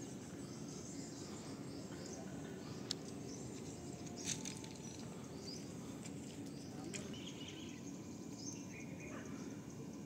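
Outdoor ambience: a steady low background rumble with scattered bird chirps and a few sharp clicks, the loudest about three and four seconds in.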